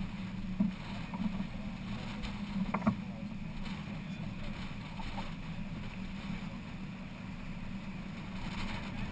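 Steady rush of wind and water aboard a sailing yacht under way in a fresh breeze. A sharp knock comes about three seconds in.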